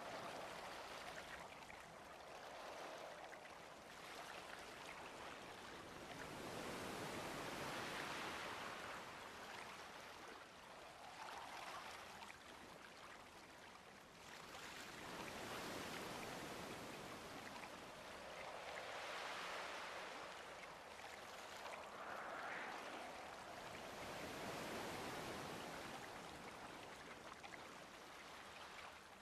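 Faint rushing noise like running or washing water, with no clear pitch, swelling and fading every few seconds.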